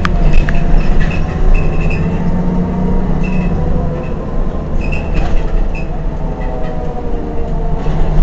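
Heuliez Access'Bus GX 127 city bus engine idling steadily while the bus stands at a stop, heard from right behind its rear.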